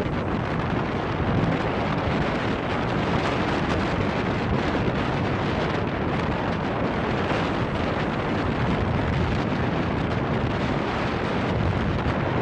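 Steady wind blowing hard across the microphone in a continuous low rumble, with lake surf breaking beneath it.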